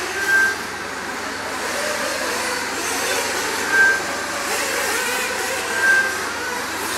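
Several nitro RC buggy and truggy engines buzzing and revving as they race around the track, a dense mix of wavering engine pitches. Three short high beeps cut through it, about a third of a second in, near four seconds and near six seconds: the kind given by a lap-timing system as cars cross the line.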